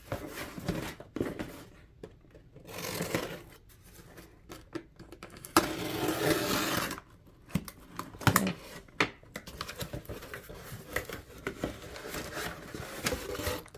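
Cardboard box being opened by hand: irregular scrapes, taps and clicks of the flaps and packaging, with a longer tearing or sliding rasp about five and a half seconds in.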